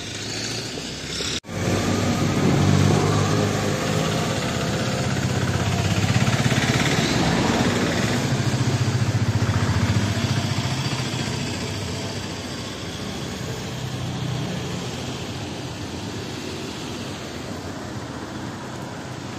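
A motor vehicle's engine passing by, growing louder to a peak around the middle and then fading, over steady background noise.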